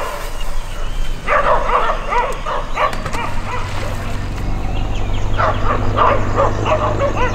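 Dog barking in quick runs of short yaps: one run about a second in, another from about five seconds on.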